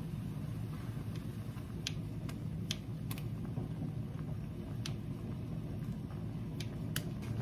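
A pot of tomato-based soup boiling hard on a gas burner: a steady low rumble of flame and bubbling, with a few scattered sharp ticks.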